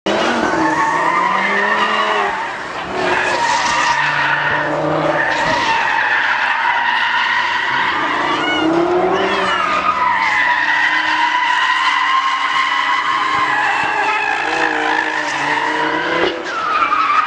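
Audi car drifting in circles on tarmac, its tyres squealing over an engine that rises and falls in pitch, with brief drops in loudness about two and a half seconds in and near the end.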